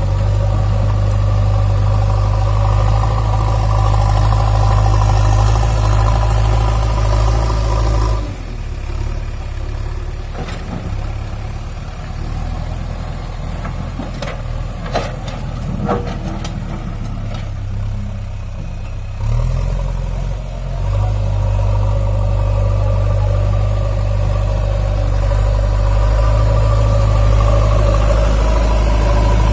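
JCB backhoe loader's diesel engine running steadily under load. About a third of the way in it drops to a lower level, with a few sharp knocks, and it comes back up strongly about two-thirds of the way through.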